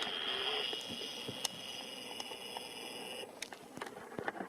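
Camera zoom motor whining steadily as the lens zooms in, stopping about three seconds in, with a few faint clicks.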